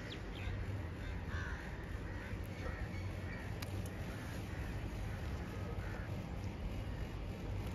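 Crows cawing repeatedly, a string of short calls, over a steady low background rumble.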